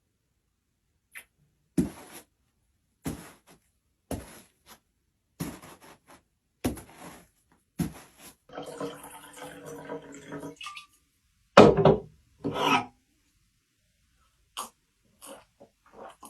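Foley sound effects made with props: a run of separate knocks about a second apart, then a pitched, creak-like sound lasting about two seconds, then two louder hits and a few faint taps.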